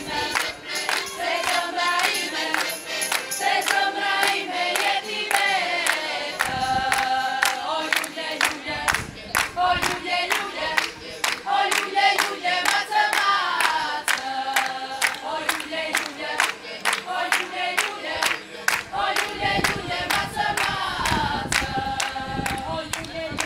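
A group of Arbëreshë women singing a traditional vallje song together, clapping their hands in a steady rhythm of about two to three claps a second.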